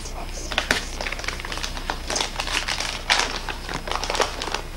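Gift wrapping paper crinkling and rustling in a string of irregular crackles as a present is unwrapped by hand.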